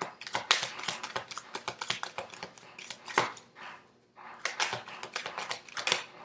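A deck of tarot cards being shuffled by hand: fast papery card clicks in two spells, with a pause of about a second between them.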